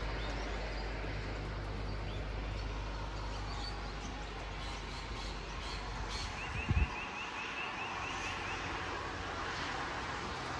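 Steady rain falling, with a low rumble of road traffic underneath that fades out about two-thirds of the way through. A little past halfway a bird gives a quick trill of about a dozen short high notes, and a single dull thump comes at the same moment.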